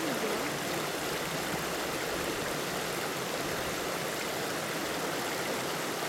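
Steady rush of flowing water from a small stream, an even hiss with no breaks.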